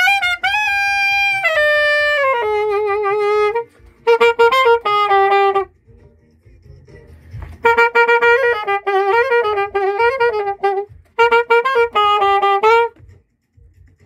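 Alto saxophone played solo with no accompaniment: a long high note stepping down to a lower held note, then three shorter phrases with bends and vibrato, separated by brief pauses. The playing stops about a second before the end.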